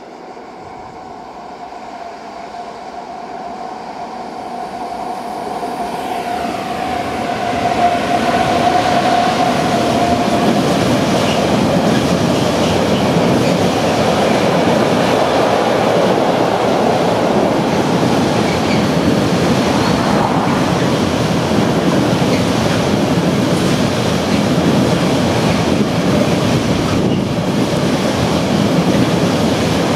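A Siemens class 1216 electric locomotive approaches and passes close by with a whine from its drive that bends down in pitch as it goes under, about seven seconds in. After it comes the steady rumble and clatter of a long train of container flat wagons rolling over the rails.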